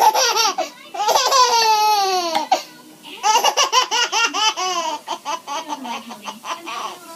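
A baby laughing hysterically in high-pitched squealing bursts: a long falling squeal about a second in, then a run of quick laugh pulses in the middle, trailing off quieter near the end.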